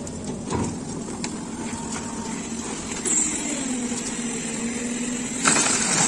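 Wet concrete tipped from a wheelbarrow onto a roof slab's steel mesh, a brief rushing slide near the end. Under it, a site machine's engine runs steadily, its pitch dropping slightly about three seconds in.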